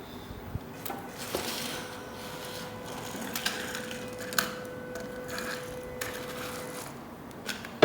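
Small electronics-kit motor running steadily for about five and a half seconds as it lifts a parking-barrier pole, with a few clicks and knocks around it.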